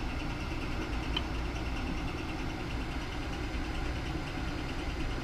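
Steady whirring hum of a freshly powered-on Alunar M508 3D printer sitting idle, its cooling fans running, with a faint click about a second in.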